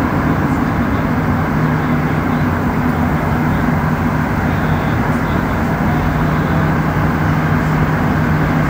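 Montreal Metro AZUR rubber-tyred train running, heard from inside the car: a steady rumble with a constant low hum.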